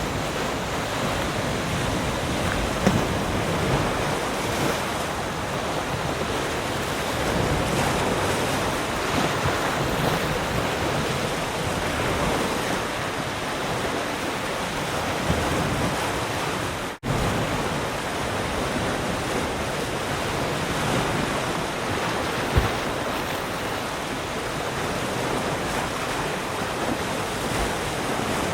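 Sea surf: waves breaking and washing on a shore in a steady, even rush of noise. The sound cuts out for an instant a little over halfway through.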